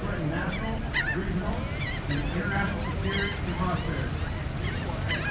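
Birds calling repeatedly, short rising-and-falling calls coming one after another over a steady low hum.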